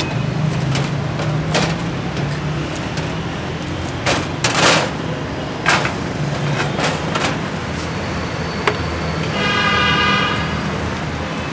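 Steady roadside traffic hum with scattered short knocks and a brief louder rasp about halfway through; near the end a vehicle horn sounds once for about a second.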